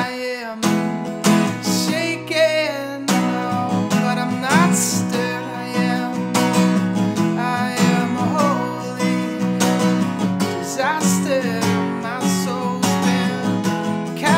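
Acoustic guitar strumming steady chords in an instrumental passage of a song, with a melody line above it that slides and wavers in pitch.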